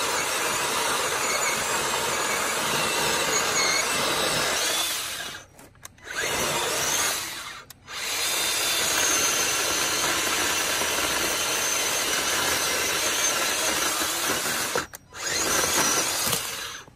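Chainsaw cutting through a fallen tree, its bar running without chain oil. It runs in long stretches, dropping out briefly three times and stopping near the end.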